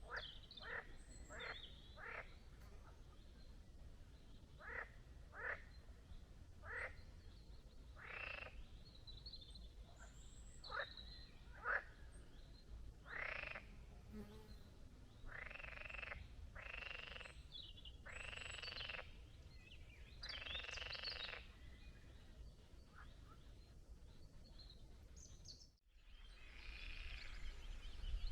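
Frogs croaking in a series of separate calls, short ones about a second apart at first, then longer, drawn-out croaks of up to about a second each around the middle. The sound drops out briefly near the end.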